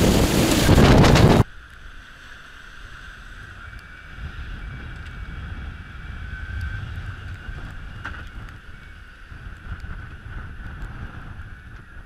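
Heavy wind buffeting the microphone with spray rushing past the deck of an ocean racing yacht under sail, cutting off abruptly about a second and a half in. A quieter low rush of wind and breaking seas follows, with a faint steady whine above it.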